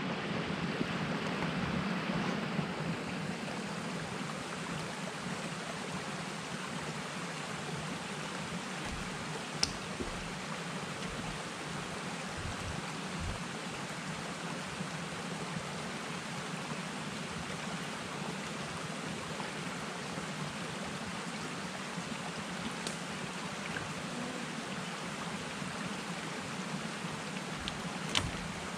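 Steady hiss of water, like rain or running water, with two faint knocks, one about ten seconds in and one near the end.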